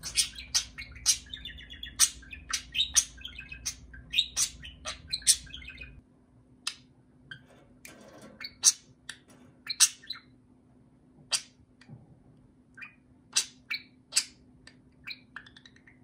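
Budgerigar chirping and chattering at a toy: a rapid string of short, sharp chirps with warbling between them for the first few seconds, then single chirps spaced out with short gaps.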